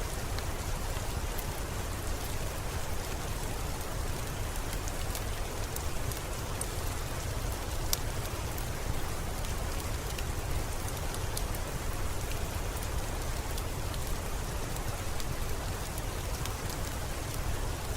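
Steady rain ambience mixed with a crackling fire: an even hiss over a low rumble, with scattered sharp crackles and pops throughout, one louder pop about eight seconds in.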